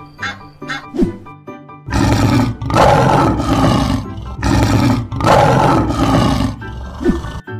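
Loud lion roar sound effect. It starts about two seconds in and lasts until near the end, after a stretch of bouncy children's music.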